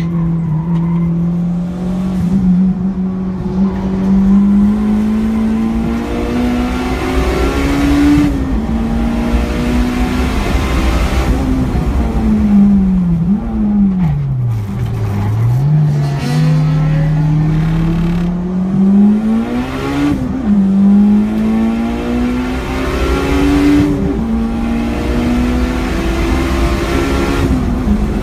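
Car engine heard from inside the cabin under hard track driving, its note climbing under acceleration and dropping sharply at each gear change, several times over. Around the middle the note falls low and then climbs again as the car slows and pulls away.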